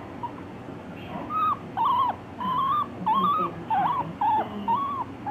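Guinea pig squealing in distress while its nails are clipped: a run of about seven short, wavering calls starting about a second in.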